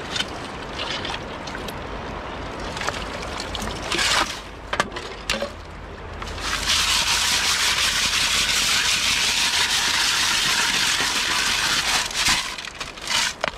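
Gold-panning gear worked in a shallow stream: gravel scraping and a few sharp knocks of stones against the metal sieve and pan. About six and a half seconds in, a steady rush of water pouring through the perforated sieve into the gold pan, lasting several seconds before it stops.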